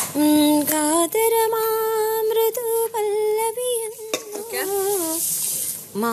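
A voice singing a slow, wordless melody of long held notes, over a steady sizzling hiss, with a few light clinks.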